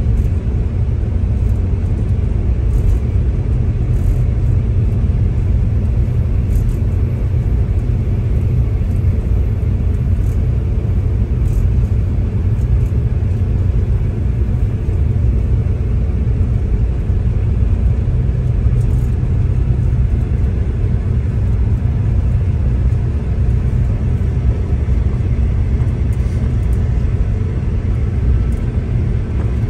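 Steady low rumble of a V/Line diesel passenger train running, heard from inside the carriage: engine and wheels on the rails.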